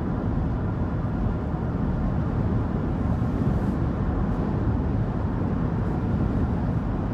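Steady rumble of road and engine noise inside the cabin of a moving SUV.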